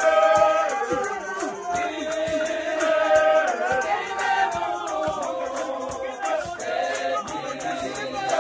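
An African gospel choir of men and women singing a song together, several voice parts moving at once, with hand claps keeping the beat.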